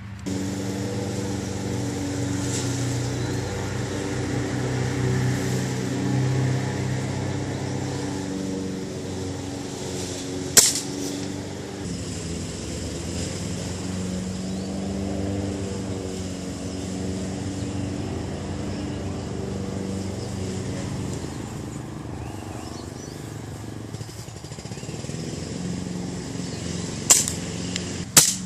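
An engine running steadily, with three rifle shots cracking over it: one about ten seconds in and two near the end about a second apart, fired while a rifle is being zeroed.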